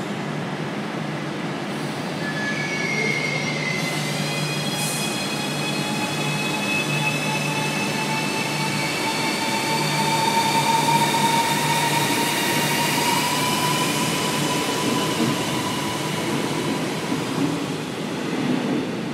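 Renfe Cercanías Civia electric train pulling out and accelerating, its traction equipment whining over the running rumble. Several high tones climb in pitch from about two seconds in, then a steadier whine rises slowly as the train picks up speed.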